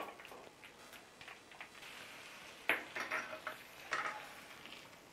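Steel cookware clinking: the small tadka pan and a spoon knocking against the steel sambar bowl as the hot tempering is tipped in, several sharp metal clinks with the loudest a little past halfway.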